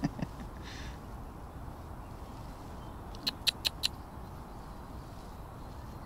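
A bird giving a quick run of short, high chirps a little over three seconds in, lasting under a second, over a quiet outdoor background.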